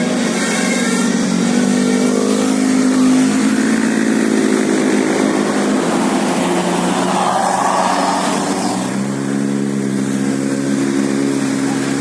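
Bus engine accelerating, rising slowly in pitch and then dropping to a lower pitch about nine seconds in, as on a gear change.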